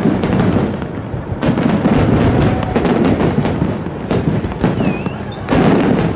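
Fireworks display: aerial shells bursting in rapid, overlapping bangs over a continuous crackle, with a louder cluster of bursts about five and a half seconds in.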